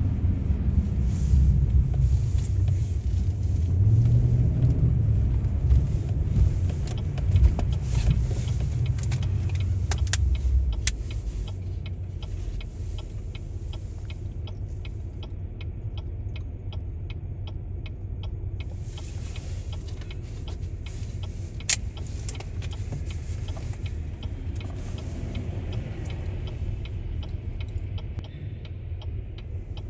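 Car driving on the road: a steady low rumble of engine and tyres, louder for the first ten seconds or so and then settling quieter. From about halfway in, a light, regular ticking repeats several times a second.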